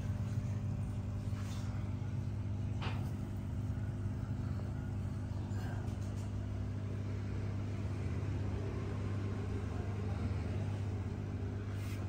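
Steady low hum of an aquarium pump running, unchanging throughout, with a faint tick about three seconds in.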